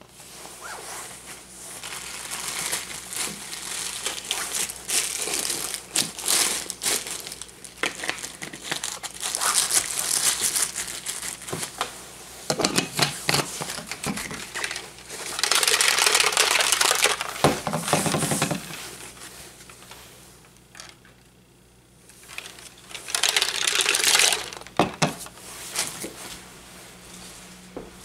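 Plastic rustling, crinkling and clicking as a pre-workout drink is made up in a plastic shaker bottle: powder scooped in, then the shaker lid fitted and screwed down. It comes in irregular bursts, with a short lull about three quarters of the way through.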